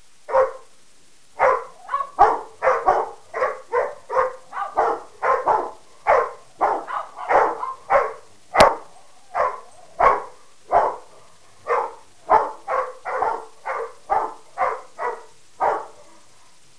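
A household of dogs, a Pekingese mix, a Rottweiler and a mastiff/pit bull mix, barking at one another in a long run of short, sharp barks, about two a second with brief pauses. One sharp click cuts through the barking about halfway in.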